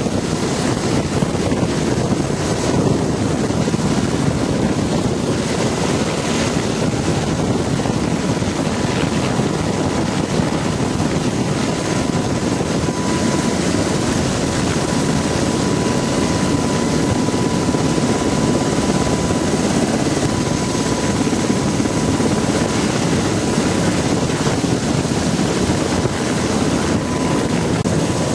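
Black Hawk helicopter running steadily close by: a continuous loud rotor and turbine noise, with a thin steady whine through the middle.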